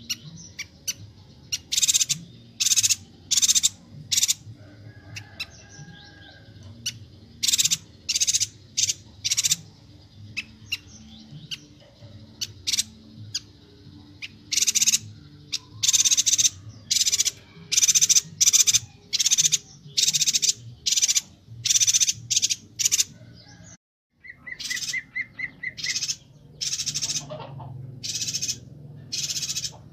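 Chestnut-crested yuhina calling in a rapid, dense series of short, harsh high chirps. Near the end the sound cuts out for a moment, then a short even trill follows among the chirps.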